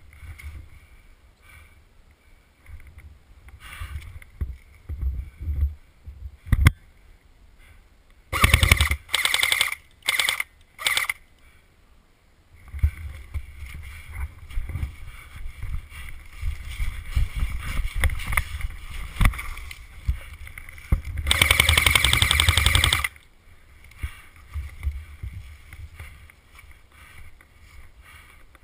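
Airsoft electric light machine gun, an ARES Stoner 96, firing full-auto: four short bursts close together, then a single longer burst of about two seconds later on. Between the bursts there is low rustling and rumbling noise from movement, with one sharp click.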